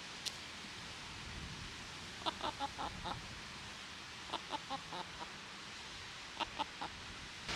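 Chickens clucking: three short runs of quick clucks, about two seconds apart, over a faint steady hiss, with a single sharp click near the start.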